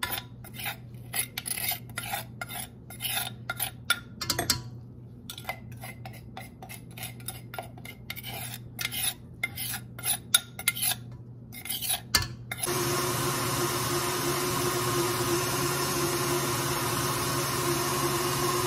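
For about twelve seconds a glass measuring cup is scraped and tapped out into a stainless steel mixing bowl, with quick irregular clicks and scrapes. Then a KitchenAid Artisan stand mixer switches on suddenly and runs steadily and louder, its wire whisk beating powdered sugar into cream cheese icing.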